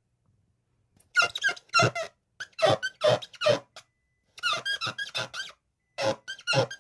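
Glass being wiped clean, squeaking in quick rubbing strokes. After a silent first second, the squeaks come in four runs of several strokes each, with short pauses between them.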